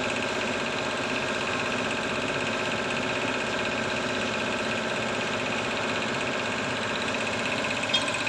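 An engine idling steadily, with an even, unchanging pitch and a fine rapid pulse.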